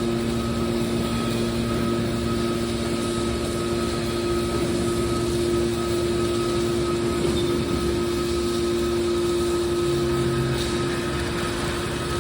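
Scrap copper baler machine running with a steady, constant hum.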